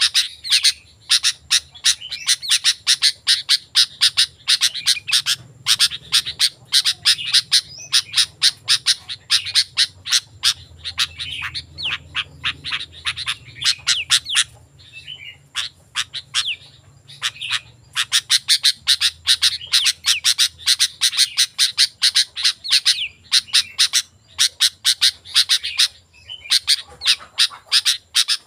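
Sooty-headed bulbul (kutilang) singing persistently: rapid runs of short, sharp chirps several times a second, broken by two brief lulls.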